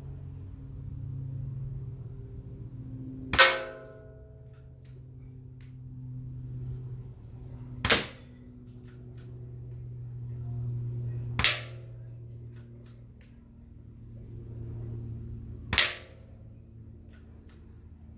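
Weihrauch HW110 PCP air rifle firing four shots, each a sharp crack with a short ring, about four seconds apart.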